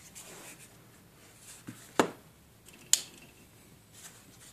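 Hands handling a smartphone: faint rustling, then two sharp clicks about two seconds in and again a second later.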